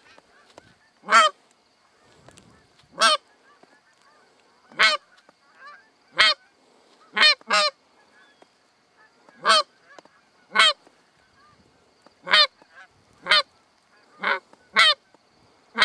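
Canada goose honks: about a dozen loud single honks spaced one to two seconds apart, a few in quick pairs.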